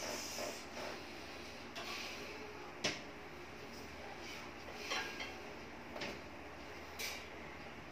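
A few short knocks and rustles from handling, the loudest a sharp click about three seconds in, over a faint steady room hum.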